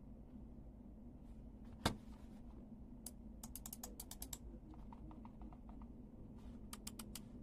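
Razer DeathAdder Essential gaming mouse buttons clicking under a fingertip: a quick run of about ten clicks, then a few fainter clicks, then another quick run near the end. A single louder knock comes about two seconds in.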